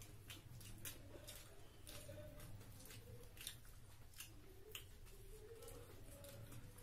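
Faint chewing and lip smacking of people eating rice and curry by hand, heard as irregular soft clicks.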